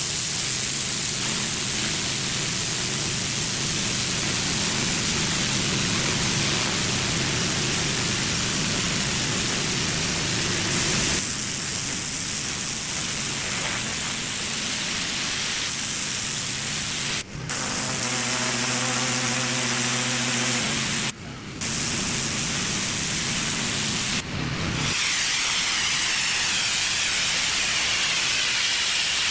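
A pressure washer running: a steady engine hum under the loud hiss of the high-pressure water spray. The sound breaks off abruptly three times in the second half and picks up again each time.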